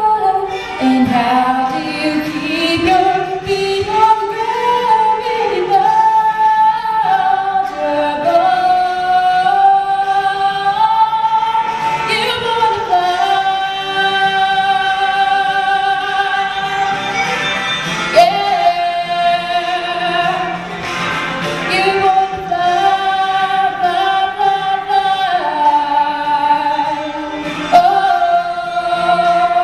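A young woman singing solo into a microphone, a melody of long held notes that glide from pitch to pitch.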